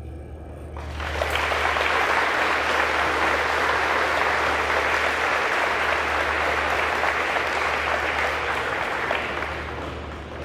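Audience applauding. The clapping swells in about a second in, holds steady, and fades out near the end.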